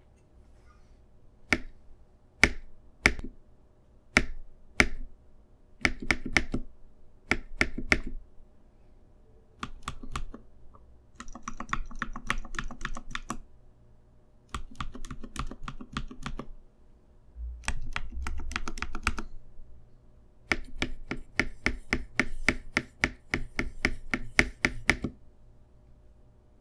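Mechanical keyboard keys being pressed: first a handful of single keystrokes about a second apart, then pairs of presses, then several runs of fast typing, the longest near the end.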